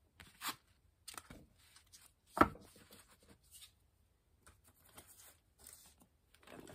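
Tarot cards being picked up off a cloth-covered table and handled: short rustles and slides of card stock, with one sharp tap about two and a half seconds in.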